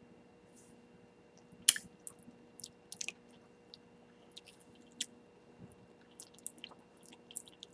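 Faint, wet mouth clicks and lip smacks from sucking and licking a sour-powder-dipped lollipop, with one sharper smack about two seconds in and a few softer ones after.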